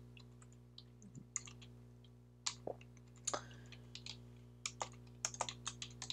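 Computer keyboard keystrokes: scattered clicks with pauses between them, coming faster near the end, over a faint steady low hum.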